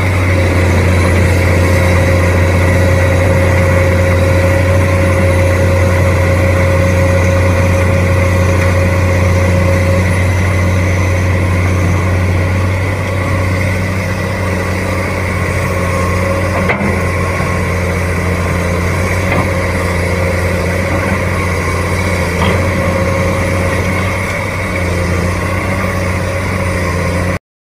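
Diesel engine of a Komatsu PC200 amphibious swamp excavator running steadily as the machine works, a loud, unbroken low drone.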